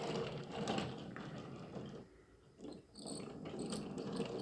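A Munipals toy subway car rolled by hand, its small wheels and trucks rattling and clicking with a squeak. The sound breaks off briefly twice past the middle.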